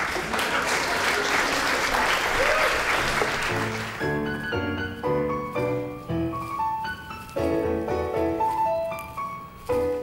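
Audience applause for about the first four seconds, giving way to a piano melody of single notes and chords.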